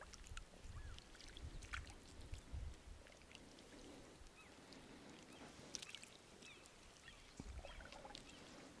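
Faint dripping and light splashing of water as a wet gill net is drawn up out of the water by hand. Faint bird calls chirp now and then.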